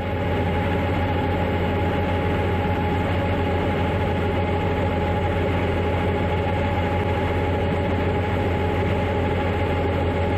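Heavy harvest machinery running steadily: a deep engine drone with a steady high whine over it, fading in just after the start.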